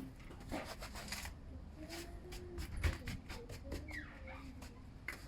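Sand being scraped and spread around garden plantings: a quick series of short, scratchy rustles.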